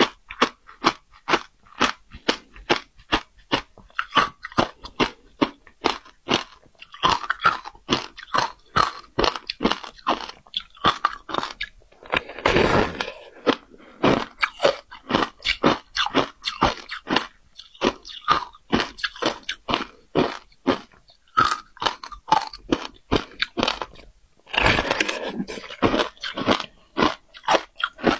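Close-miked crunching and chewing of a block of frozen passion-fruit ice: a steady run of sharp, crisp crunches, about two or three a second. Twice, about twelve seconds in and again near the end, it turns into a longer, noisier crunch.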